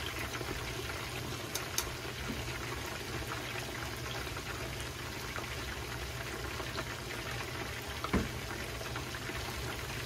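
Chicken karaage pieces deep-frying in a pan of hot oil: a steady sizzle and bubble with scattered small crackles. A single knock about eight seconds in.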